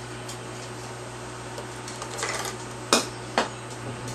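Light clatter of small hard objects, then two sharp clicks about half a second apart, over a steady low hum.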